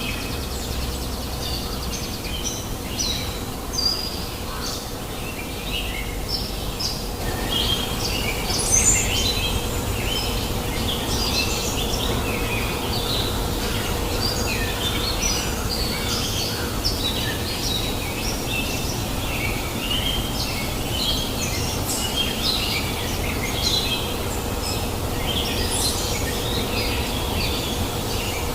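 Many wild birds chirping and calling in quick, overlapping short notes over a steady rushing noise of a flowing river; the chirping grows busier about a quarter of the way in.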